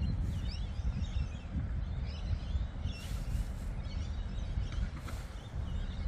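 Small birds chirping and twittering in short calls throughout, over a constant low rumble. Brief hissy bursts come about three seconds in and again near five seconds.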